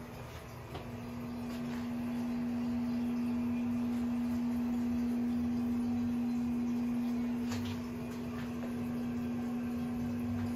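Steady, single-pitched electrical hum, with a few faint clicks about three-quarters of the way through.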